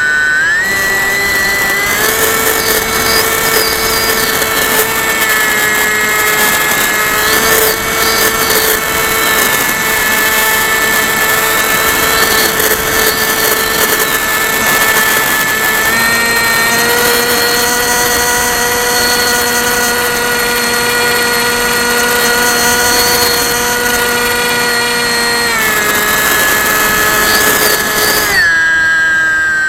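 Brushless outrunner motor and propeller of a Bixler 1.1 foam RC plane running at speed, heard from a camera on board: a steady, high, drill-like whine over wind rush. The pitch climbs about half a second in and again at about two seconds as the motor speeds up, then shifts slightly a few more times.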